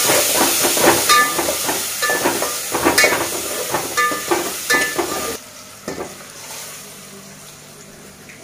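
Chopped onion, tomato and ginger sizzling in hot oil in an aluminium pressure cooker, stirred with a steel spoon that scrapes and clinks against the pot. About five seconds in the sizzling cuts off abruptly, leaving a much quieter background.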